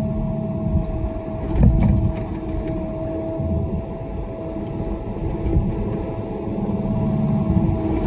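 An excavator's diesel engine running steadily with a constant high whine while its bucket scrapes and spreads crushed gravel. There is a louder knock about one and a half seconds in.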